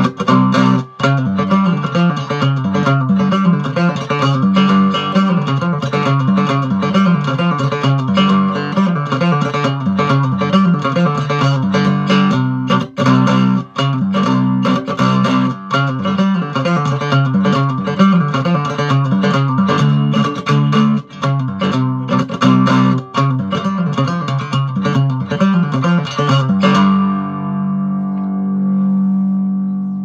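Hubcap Howler, a cigar box guitar with a hubcap resonator, plucked in a continuous tune over steady low notes. Near the end the playing stops and a last chord is left ringing and slowly fades.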